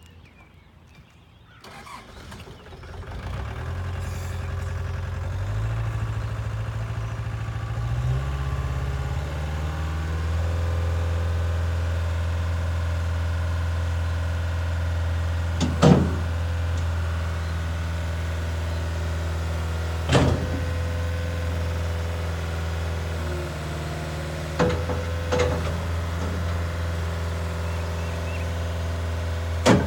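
Caterpillar 277B tracked skid steer loader's turbo diesel engine starting about two seconds in, then running and stepping up in speed twice before holding a steady pace. A few short sharp knocks come over the engine in the second half.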